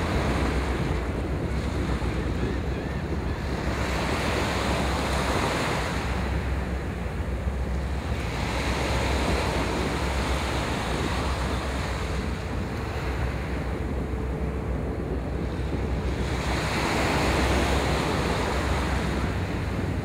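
Wind buffeting the microphone over waves washing in the channel, the washing noise swelling and easing every few seconds.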